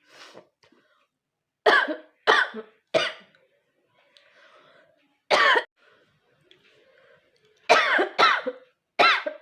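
A woman coughing forcefully over and over: three coughs in quick succession near the start, a single cough mid-way, and three more near the end, with faint breathing between them.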